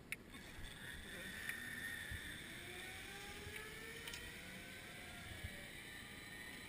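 Zip line trolley running down the steel cable as a rider launches: a steady whir with several thin tones slowly gliding in pitch. A sharp click right at the start.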